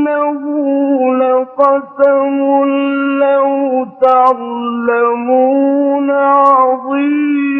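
A male Quran reciter's voice in melodic recitation, holding long drawn-out notes that step down in pitch and back up, with a few brief breaks for breath.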